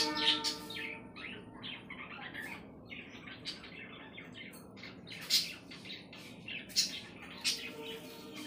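Budgerigars chirping and squawking in short calls, with a few louder squawks in the second half.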